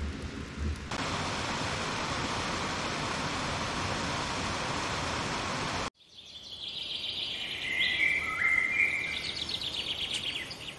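A steady rushing hiss cuts off suddenly about six seconds in. It is followed by a run of high bird-like chirps and quick trills that grow louder, then fade near the end.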